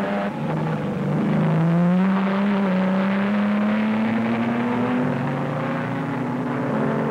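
Sports racing car engines accelerating out of a slow corner, several running at once. The loudest one's note climbs steadily for about four seconds as it pulls away.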